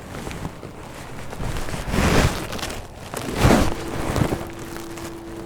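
Water splashing in two loud bursts as a hooked crappie thrashes at the surface near the boat. A steady low hum starts after the second splash.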